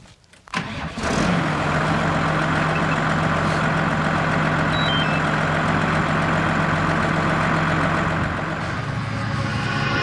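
A tractor's diesel engine comes in suddenly about half a second in and then runs steadily at idle.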